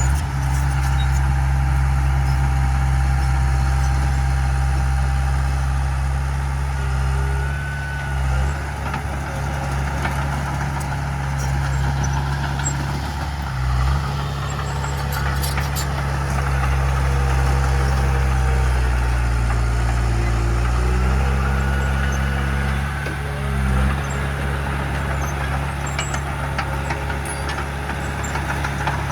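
Diesel engine of heavy earthmoving machinery running hard, a deep steady drone that dips briefly three times and shifts in pitch a little past halfway, with faint high squeaks over it.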